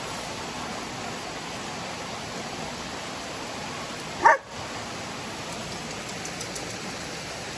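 A dog gives a single short bark about four seconds in, over a steady background rush.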